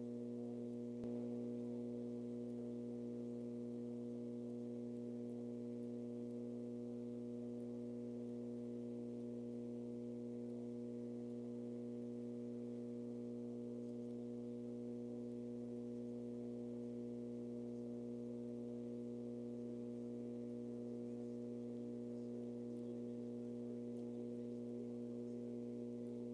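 Steady, low electronic drone: a hum made of a few stacked tones that holds unchanged without a break. A faint click sounds about a second in.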